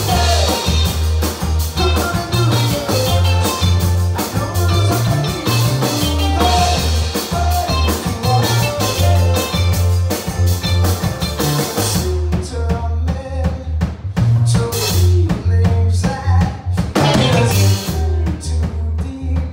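Live rock band playing: two electric guitars, electric bass and a drum kit. About twelve seconds in, the steady cymbal wash stops, leaving sparser drum and cymbal hits.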